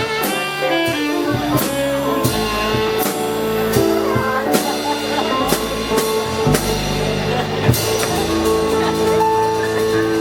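Jazz band playing an instrumental passage: long held notes over regular drum-kit hits.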